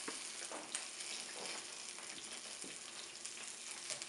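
Curry leaves and turmeric frying in a little hot oil in a pan, a soft steady sizzle, with a few light scrapes and knocks of a wooden spoon stirring them.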